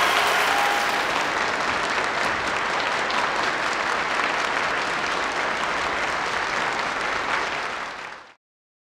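Crowd applauding, a dense steady clatter of many hands, fading out and cutting off about eight seconds in.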